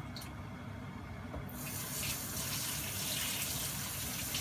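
Kitchen faucet turned on about one and a half seconds in, water then running steadily into the sink and splashing over hands rinsing a raw quail.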